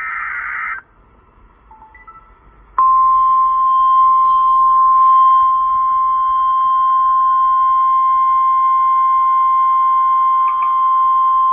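NOAA Weather Radio emergency alert: the last SAME header data burst, a short rasping burst under a second long. After a brief lull, the steady 1050 Hz warning alarm tone starts about three seconds in and holds at a loud, even level, signalling a severe thunderstorm warning.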